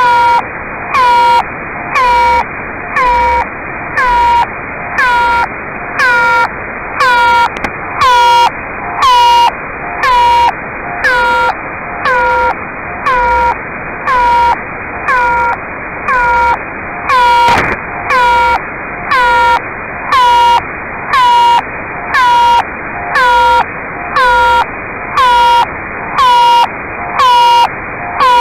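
Unidentified radio signal demodulated by a software-defined radio receiver: a steady train of beeping tone pulses, about one every three-quarters of a second, over constant radio hiss.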